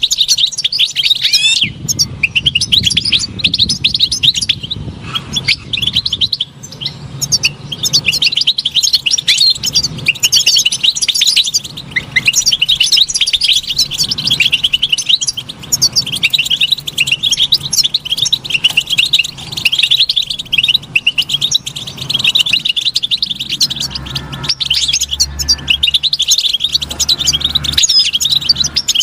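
European goldfinch singing: a long run of fast, high, twittering notes and trills, broken only by a few short pauses.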